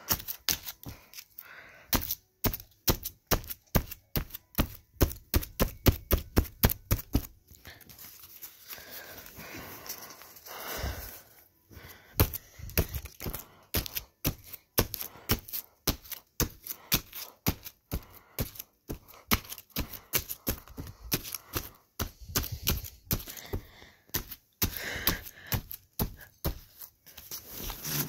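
Rapid runs of sharp knocks and cracks, about three a second, as a VHS cassette is hit and broken apart. A quieter, noisier stretch comes about eight to twelve seconds in.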